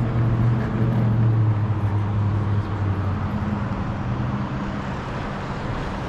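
City street traffic, with one vehicle's engine humming low and steady, then fading out about halfway through.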